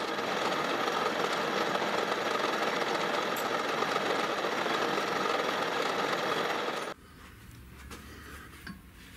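Metal lathe running with its spindle turning, a steady dense mechanical clatter from the machine, which cuts off abruptly about seven seconds in. After it, only a low hum and a few light knocks as a steel shaft is handled against the machine.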